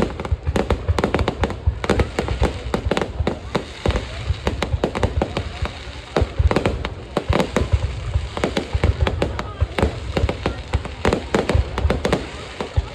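Fireworks display: a dense, irregular run of sharp bangs and crackles from shells bursting overhead, many a second, over a low rumble.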